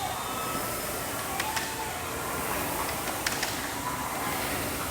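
Steady background noise with a few sharp clicks: the ambience of a competition gym floor.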